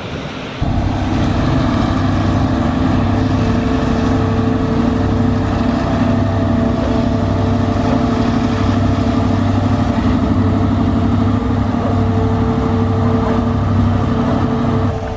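Engine of Mammoet's multi-axle self-propelled transporters running steadily under a moving house, a constant deep engine note with a slight low pulsing. It starts suddenly about half a second in.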